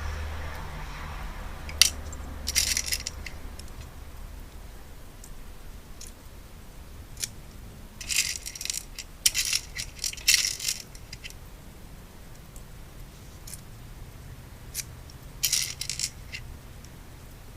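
Small metal lock pins clinking and rattling in short bursts as they are picked out and dropped into the pin chambers of a Lockwood 201 rim cylinder being recoded. There are four or so separate bursts, the longest about three seconds in the middle.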